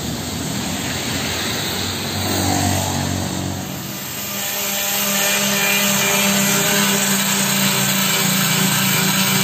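Corded electric palm sander running against the steel tailgate of a pickup, sanding off old paint and rust: a steady motor hum with the rasp of sandpaper on metal. It gets louder about four to five seconds in.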